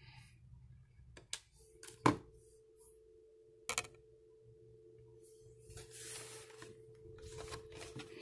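Steady telephone dial tone from an AGPTEK HA0021 call-center desk phone, which starts about a second and a half in. A few sharp clicks and knocks come early on, the loudest about two seconds in.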